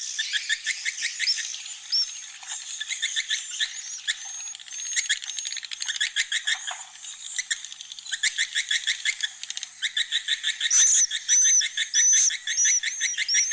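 Recorded chorus of many edible-nest swiftlets: dense, rapid, buzzy clicking trills overlapping, with short high whistled chirps that come more often and louder in the last few seconds. It is a swiftlet-house roosting call, a mix of chick and adult calls played in the roosting room so that swiftlets feel a flock is nearby and settle to nest.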